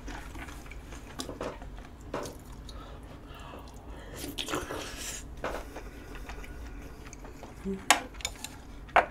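Close-miked eating sounds: a mouthful of stew taken with chopsticks about four seconds in, then chewing, with scattered soft clicks and two sharp clicks near the end.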